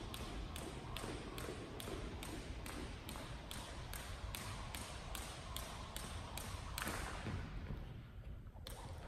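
A jump rope slapping a wooden gym floor with each turn while the jumper's shoes land lightly, in a steady rhythm of about two and a half strikes a second, with a brief gap near the end.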